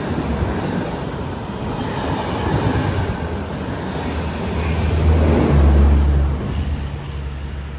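Train running past in heavy rain: a steady rushing noise with a low hum that grows to its loudest about five to six seconds in, then eases.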